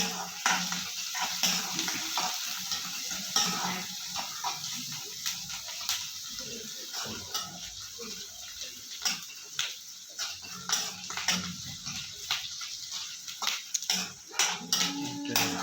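Cauliflower sabji frying in hot mustard oil in a karahi: a steady sizzle with irregular clicks and scrapes of a spatula stirring the vegetables.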